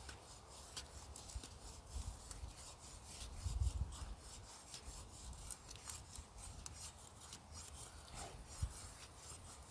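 Ontario Bushcraft machete blade scraping and shaving dry, charred wood into kindling: a run of short, sharp scraping strokes, with one dull knock about three and a half seconds in.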